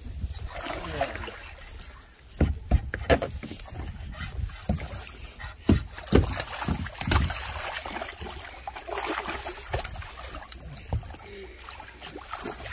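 Wind buffeting the microphone and choppy water slapping against a small boat's hull, broken by several heavy knocks and thumps, the loudest about two and a half seconds and six seconds in.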